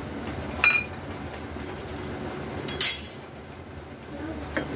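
Metal kitchen utensils clinking twice: a sharp clink with a short ring about half a second in, then a brief clatter near three seconds in, over a low steady background noise.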